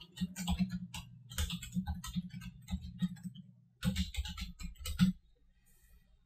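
Computer keyboard typing: quick runs of keystrokes for about three seconds, a short pause, then another burst that stops about five seconds in.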